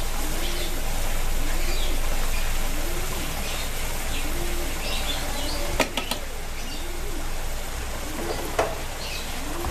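Thick onion-tomato butter chicken sauce sizzling in a frying pan as it is stirred with a wooden spatula, with three quick knocks of the spatula about six seconds in and another near the end. A low note that rises and falls repeats about once a second throughout, with faint chirps above it.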